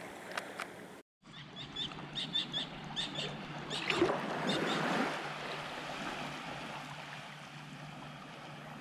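Shallow seawater splashing and sloshing as someone wades through it, loudest about four seconds in and settling into a steady quieter wash, with a run of short high chirps just before the loudest part.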